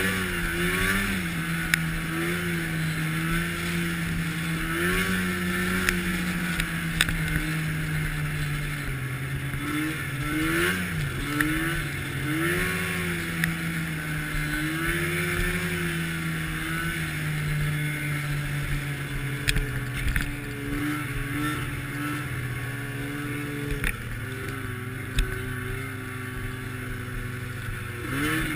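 Arctic Cat snowmobile engine running, heard from on board, its pitch wavering up and down with the throttle over a steady hiss. A few sharp clicks and knocks come through now and then.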